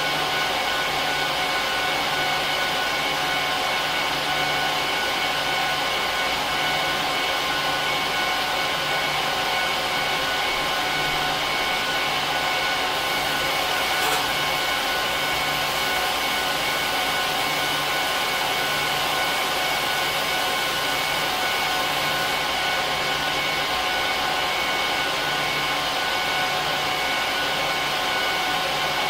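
HP ProLiant DL380p Gen8 server's cooling fans running, a steady loud whir with several whining tones and a low throb that repeats about every second and a bit. A faint click about halfway through.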